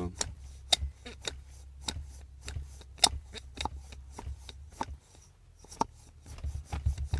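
Irregular clicks and light knocks of a disassembled VAZ heater fan motor being handled by hand, over a low steady hum that stops about five seconds in.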